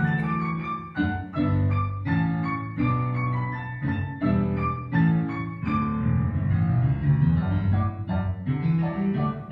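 Piano ensemble music: three pianists on two pianos, one of them a digital piano, playing a classical-style piece in a quick, steady rhythm of chords and repeated notes.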